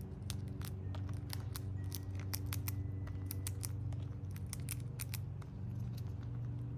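Squirrel eating, its teeth cracking and crunching seeds in quick, irregular crisp clicks, over a steady low hum.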